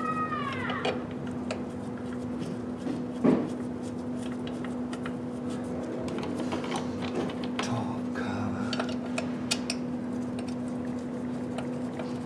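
Light clicks and clatters of hands handling and fitting the top cover back in place over the fuel filter, with one sharper knock about three seconds in, over a steady low hum.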